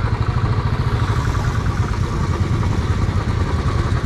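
Royal Enfield motorcycle engine running steadily, with a fast even low pulse and no change in revs.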